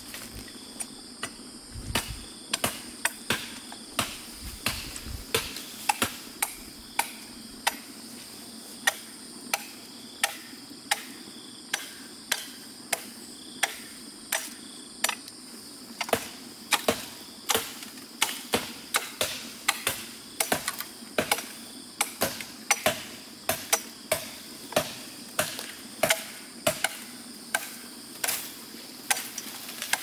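Bamboo being chopped with a blade: a long run of sharp, regular strikes, about two a second, some of them in quick pairs. A steady high insect drone runs underneath.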